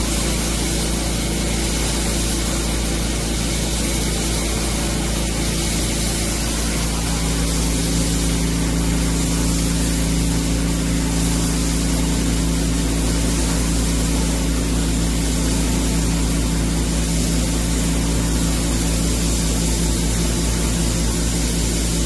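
Automatic table sandblasting machine running. A steady hiss of the abrasive blast sits over a constant low hum from the machine's motors.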